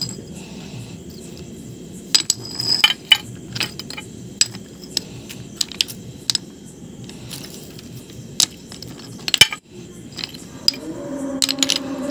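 Broken pieces of flat stone slab clinking and knocking against each other as they are handled and shifted, a string of sharp, irregular clicks.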